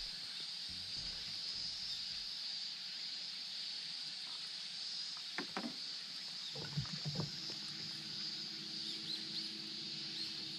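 A steady high insect drone over quiet open-water ambience on a small boat, with a few light knocks and water splashes near the middle.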